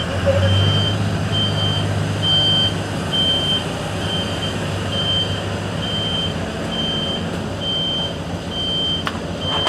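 Reversing alarm of a Caio Apache Vip IV bus on a Mercedes-Benz OF 1721 BlueTec 5 chassis, beeping a single high steady tone about once a second. The bus's diesel engine runs underneath, louder in the first half.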